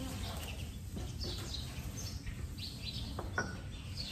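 Small birds chirping: many short, high, falling chirps, over a low steady background noise, with two brief clicks a little after three seconds in.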